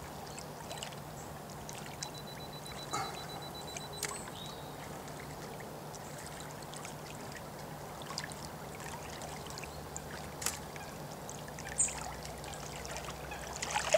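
Small waves lapping at the lake shore, a steady watery wash, with a few faint clicks.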